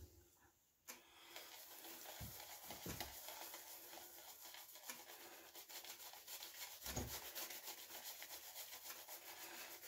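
West Coast Shaving two-tone shaving brush scrubbing lather onto a bare scalp: a faint, steady bristly rubbing of quick strokes that starts about a second in.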